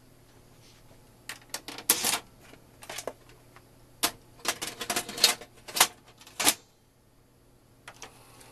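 Clicking and clattering of small hard plastic and metal parts being handled on a VCR under repair, in several quick bursts over about five seconds, over a low steady hum.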